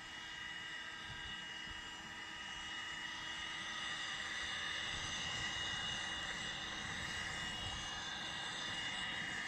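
Small electric blower fan (the grill's 'dragon's breath') running at a constant pitch, a steady whine over the rush of air, blowing into the wood fire to speed up its lighting.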